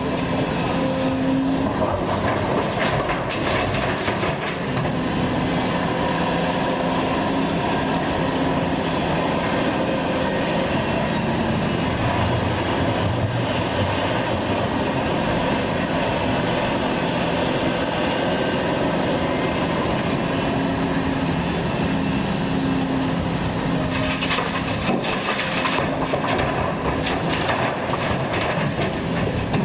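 A heavy diesel engine running steadily with a low droning hum, with a spell of clattering knocks near the end.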